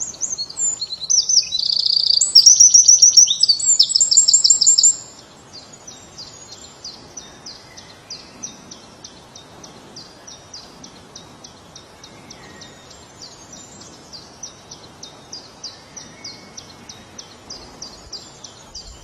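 A small songbird singing: for about five seconds a loud, varied high song with fast trills, then a steady series of fainter high notes, about three a second.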